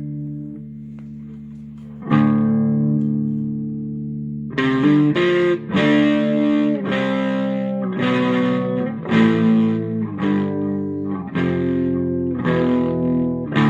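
Electric guitar played through a JOYO Tai Chi low-gain overdrive pedal into a Fender amp, with a mildly overdriven tone. A chord rings out and fades, a new chord is strummed about two seconds in and held, then from about four and a half seconds a run of strummed chords follows.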